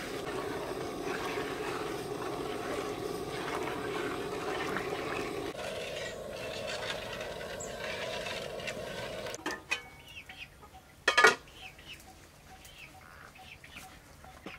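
Steady rushing of a gas burner flame under a large steel pot of heating water, with a ladle stirring it. About nine and a half seconds in the flame noise cuts off abruptly, and about two seconds later there is a single loud sharp knock.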